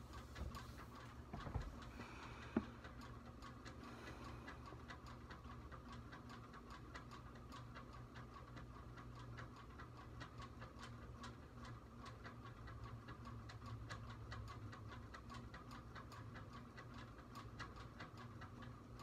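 Quiet room with a clock ticking steadily over a low hum, and a couple of soft knocks about two seconds in.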